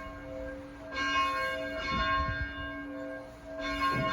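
A single church bell being rung, struck twice about two and a half seconds apart, each stroke ringing on with a long, steady hum of several tones.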